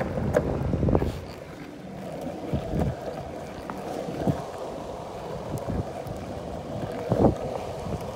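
Longboard wheels rolling over pavement, a steady rumble, with wind buffeting the microphone. A few knocks come through it, the loudest near the end.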